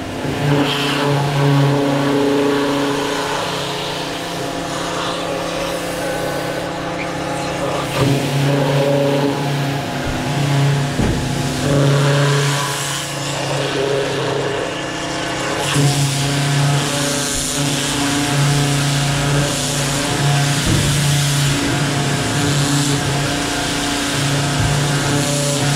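HiKOKI FAW110 electric pressure washer running, its motor hum growing and easing in strength several times, while the turbo nozzle's water jet hisses against a canvas shoe and the steel table.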